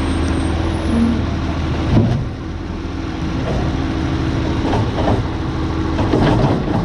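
Autocar Labrie Automizer side-loading garbage truck running steadily, with a sharp knock about two seconds in and a run of clattering knocks near the end.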